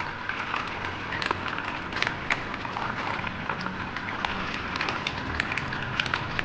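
Green mussels cooking in butter and garlic, sizzling and crackling in a pot, with the shells clicking against each other and the ladle at irregular moments as they are stirred.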